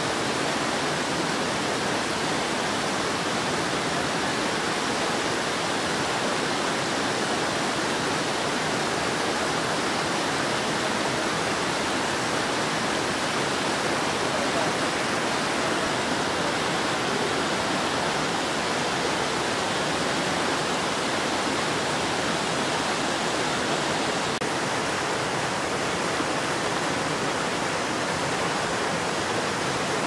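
Water cascading over boulders in a small rocky waterfall: a steady, unbroken rush of white water.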